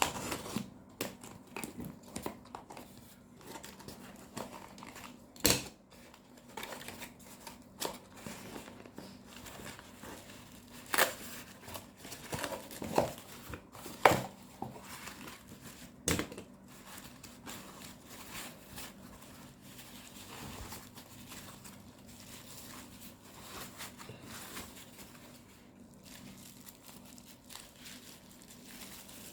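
A parcel being unpacked by hand: packaging crinkling and tearing, with a few louder sharp snaps and clicks in the first half.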